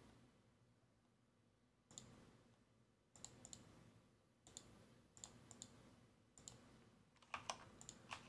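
Faint clicks of a computer mouse, in small clusters about a second apart, coming quicker near the end.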